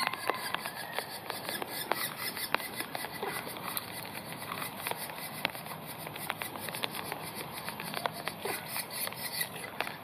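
Banded woodpecker nestlings calling from inside the nest cavity, heard as short sharp ticks at irregular intervals. A fast, even high pulsing runs with them and stops shortly before the end.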